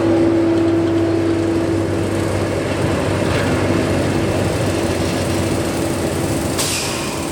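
Diesel locomotives of a freight train running, a steady loud engine noise with a held tone that fades out after about two seconds. A short hiss comes near the end.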